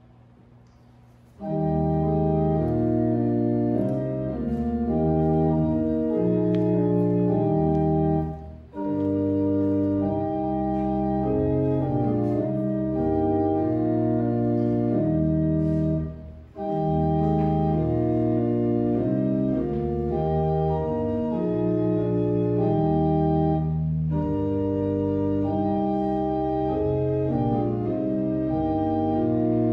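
Church pipe organ playing in full sustained chords. It begins about a second and a half in and goes in phrases of roughly seven to eight seconds, with brief breaks between them.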